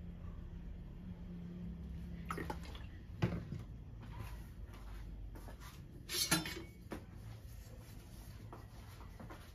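Light kitchen knocks and clatters as cooking oil is squeezed from a plastic squeeze bottle into an empty steel wok and the bottle is set back down, with a few short knocks and a louder clatter about six seconds in.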